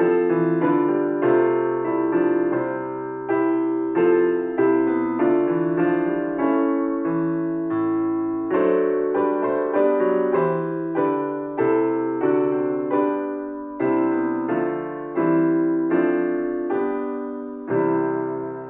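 Solo piano playing slowly, chords struck about once a second and left to ring and fade between strikes.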